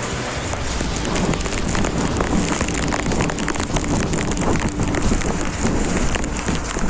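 Heavy rain pattering down with gusting wind, the wind buffeting the microphone, making a dense, steady hiss with many small crackling ticks.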